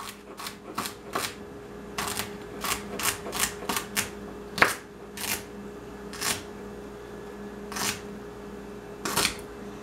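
Kitchen knife chopping celery on a wooden cutting board: irregular knocks of the blade on the board, in quick runs of several a second with pauses between. A faint steady hum sits underneath.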